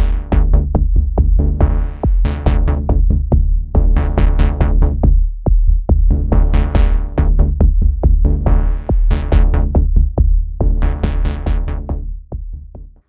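Electronic background music with a steady drum-machine beat over sustained bass notes, fading out near the end.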